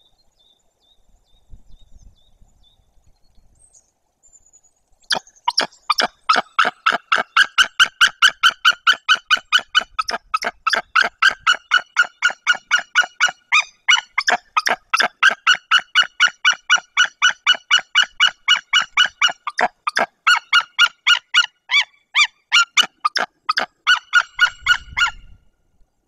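White-tailed eagle calling: a long, loud series of rapid yelping notes, about three a second, starting about five seconds in and running for some twenty seconds before stopping near the end. Typical of the eagle's territorial alarm calling at an intruding eagle near the nest.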